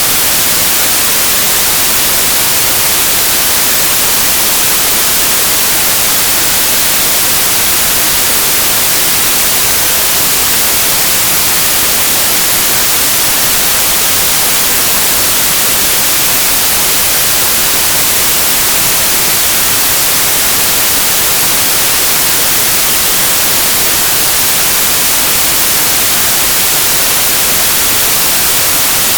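Steady electronic white noise: an even, unchanging hiss, brightest in the treble, with no changes.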